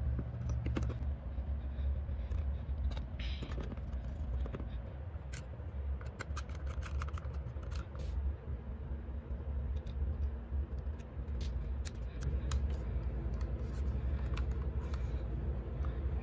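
Small scattered clicks and taps from hands handling a plastic radio case and its small parts, over a steady low hum.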